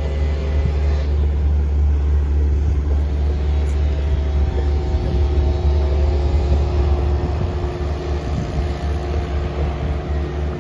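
Engine of road-building machinery running steadily on a site where new asphalt is being rolled, a low drone whose engine tones shift a little in pitch around the middle.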